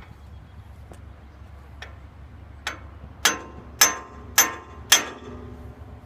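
A hammer tapping the band wheel's bearing pillow block on a sawmill frame to shift it and square the wheel: a couple of light taps, then four hard ringing strikes about half a second apart.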